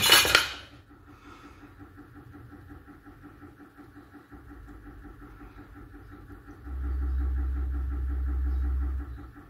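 Faint steady electrical hum, with a low steady rumble that comes in about two-thirds of the way through, lasts roughly two seconds and stops before the end.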